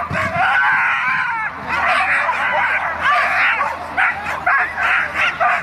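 A dog barking and yelping shrilly during an agility run: long, nearly unbroken volleys at first, then separate yelps about two or three a second.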